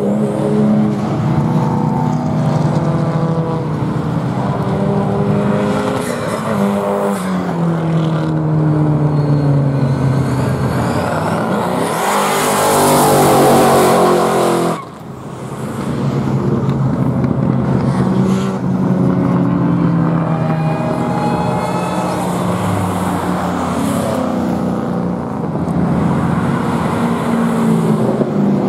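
Modified street cars' engines revving hard and passing on a race track, rising and falling in pitch. About twelve seconds in, a car does a burnout: its engine is held at high revs while its rear tyres squeal and spin, which is the loudest part. It cuts off suddenly a few seconds later.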